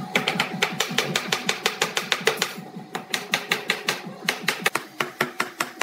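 Wooden mallet tapping rapidly on a joint between curved pine segments, driving them together: light wooden knocks about five a second, with a short break about halfway through and another shortly after.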